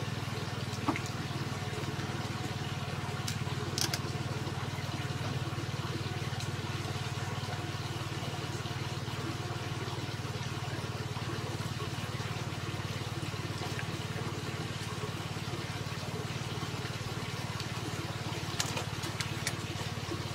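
A steady low mechanical hum, with a cat's faint wet licking at a squeeze tube of paste treat and a few sharp clicks, twice near the start and a few times near the end.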